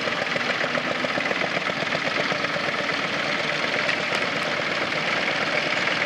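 Fordson Dexta tractor's three-cylinder diesel engine running steadily under load while it pulls a plough, with an even rapid beat.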